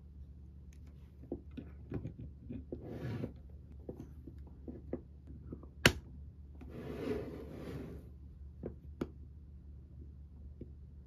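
Sweet Gale Little Meloni resin ball-jointed doll being handled as its head is fitted onto its dressed body: rubbing, light taps, two stretches of rustling, and one sharp click about six seconds in.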